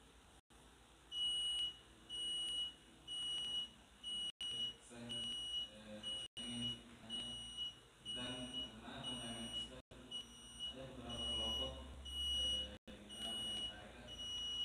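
High-pitched electronic beep repeating about once a second, starting about a second in, with a faint voice talking quietly under it.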